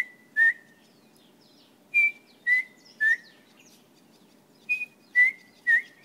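A man whistling an impression of a chin-spot batis call: short clear notes stepping down in pitch in phrases of three, repeated twice more after the tail of a first phrase.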